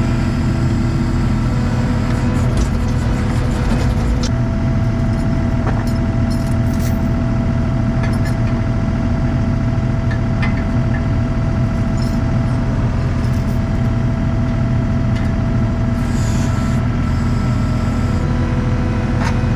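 ASV RT-40 compact track loader's diesel engine running steadily, heard from inside its cab.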